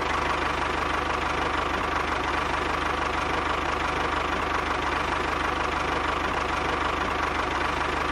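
Small tractor engine idling steadily, with a fast, even chugging.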